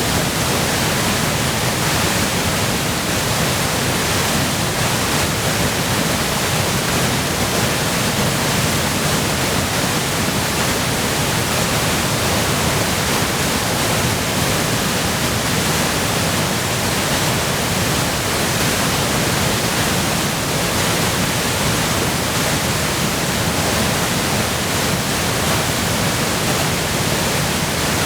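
Waterfall in high spring flow, its water crashing down in a steady, unbroken roar.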